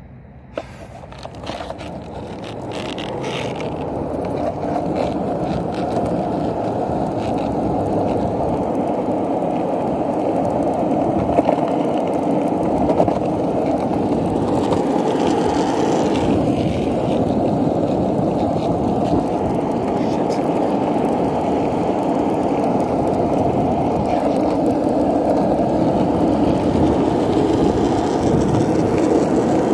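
Skateboard wheels rolling on pavement: a steady rumble that grows louder over the first several seconds and then holds, with a few sharp clicks near the start.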